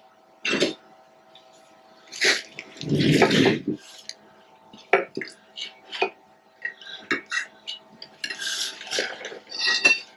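Metal hand tools and machine parts clinking and knocking against each other, a dozen or so irregular sharp clanks with a couple of heavier ones, over a faint steady hum.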